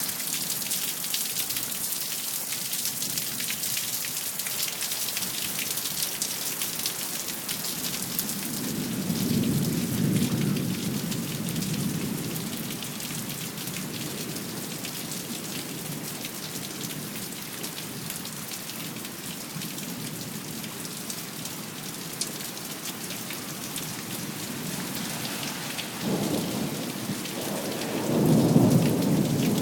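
Steady rain falling, with thunder rumbling twice: a roll about a third of the way in and a louder one near the end.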